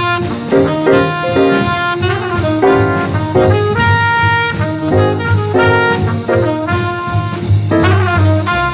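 Hard bop jazz recording: trumpet and tenor saxophone play a fast, busy melodic line in quick notes over bass and drum kit.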